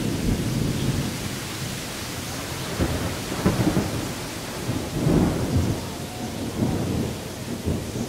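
Thunderstorm: steady rain with low rolling rumbles of thunder, swelling most strongly about three and a half and five seconds in.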